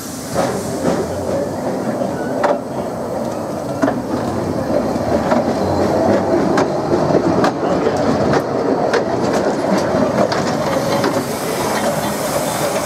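A small narrow-gauge steam train, a tank locomotive and its carriages, rolling slowly past close by. Its wheels click irregularly over the rail joints above a steady running rumble.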